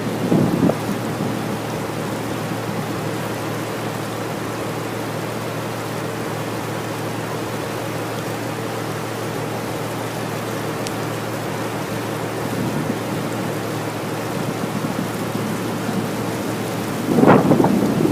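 Steady running noise of a river cruise boat under way, a constant drone with a faint steady hum in it. Twice, about half a second in and near the end, a brief louder rumble rises over it.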